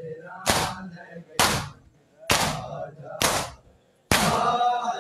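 A crowd of mourners doing matam, striking their bare chests with open hands in unison. Five sharp slaps land at an even beat of about one every second, and voices call out after the last one.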